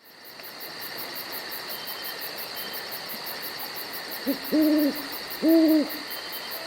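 An owl hooting: a short hoot followed by two longer, steady hoots about a second apart. Behind it runs a steady night hiss with a fast, high chirping pulse, about five a second.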